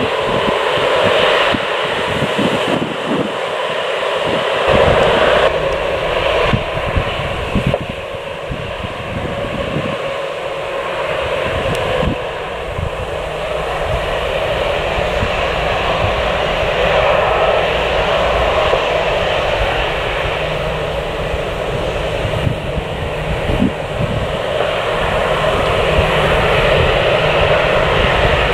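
Jet airliner engine noise, a steady loud roar over an uneven low rumble, growing a little louder near the end.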